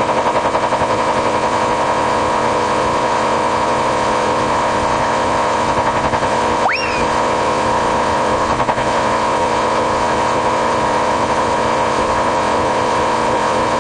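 Morse code beeping on one steady pitch, harsh and buzzing, running without a break, with a brief upward-sliding chirp about seven seconds in.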